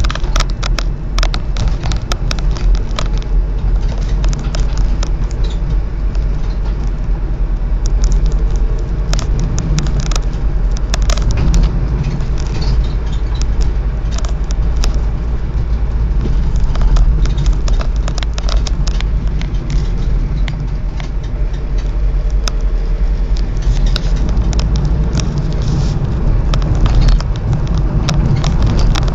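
A car driving, heard from inside the cabin: a steady low rumble of engine and road noise, with frequent small clicks and rattles throughout.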